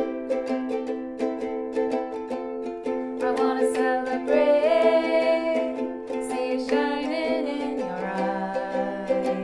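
Two ukuleles strummed in a steady rhythm. Singing voices come in about three seconds in and hold long notes, with a short break near the middle.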